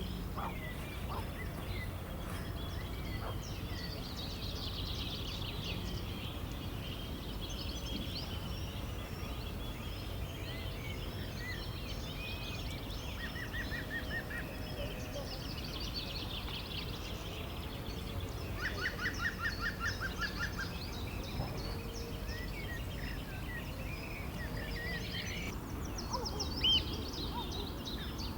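River water flowing steadily, with songbirds singing and trilling over it; a fast trill about two-thirds of the way in and two louder short calls near the end.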